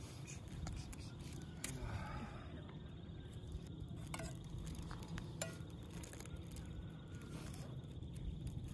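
A few sharp clinks and taps of camp cookware, plates and a portable gas stove being handled, over a steady low rumble of wind on the microphone.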